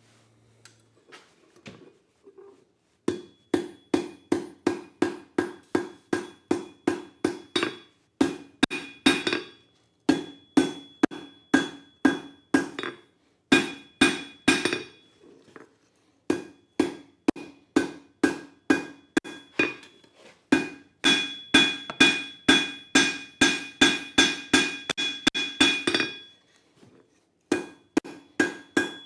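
Blacksmith's hammer striking hot coil-spring steel on an anvil at about three blows a second, each blow ringing. The runs of blows stop for brief pauses as the knife's tip and tang are forged.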